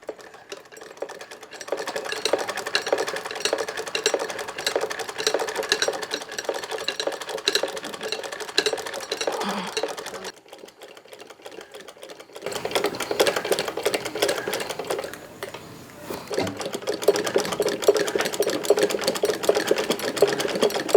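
Old sewing machine running, its needle mechanism making a fast, even clatter of clicks. It stops for about two seconds midway, then starts up again.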